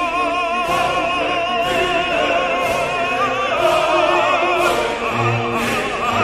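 Orchestral music with an operatic singing voice holding long notes with wide vibrato, and a bright percussive strike about once a second.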